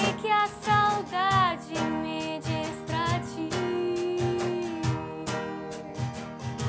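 Acoustic guitar music with percussion strokes on a steady beat and a wavering melody line above it.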